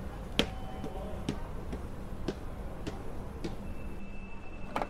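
Pendulum clock ticking in a quiet room, with a steady low hum under it.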